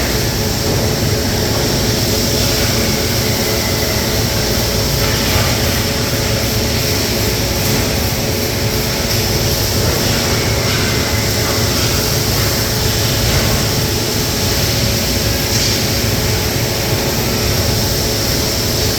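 Steady industrial machine noise from an automated robotic welding system: a constant hum with hiss above it, unbroken throughout.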